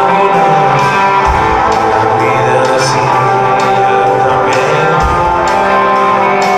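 Live rock music, with an electric guitar to the fore, heard loud from the audience at a concert.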